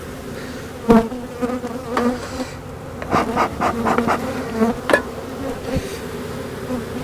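Honey bees buzzing in a steady hum around an open hive. A sharp knock about a second in and a run of clicks and scrapes a couple of seconds later, from the hive being worked.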